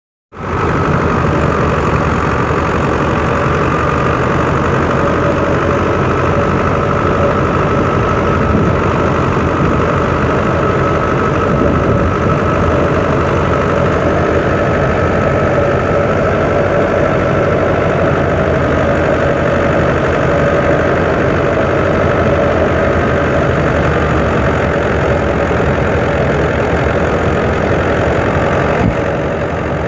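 A 640 tractor's diesel engine running steadily and loudly while powering a wheat thresher, the thresher's machinery running along with it.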